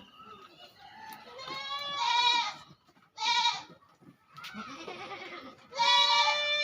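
Goats bleating: three loud bleats, about two seconds in, about three seconds in and near the end, with quieter calls between them.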